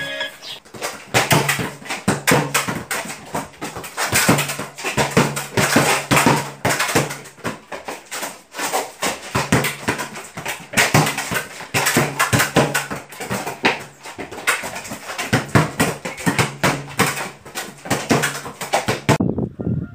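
A football being tapped, bounced and kicked on a concrete floor in a bare small room: many quick, irregular thumps and shoe scuffs.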